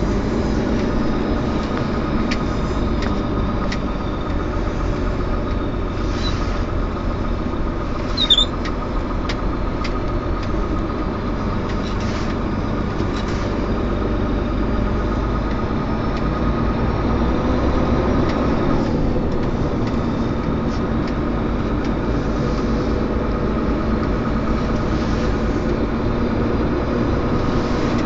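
Engine and road noise inside the cab of a moving vehicle, a steady hum throughout. A brief high squeak about eight seconds in.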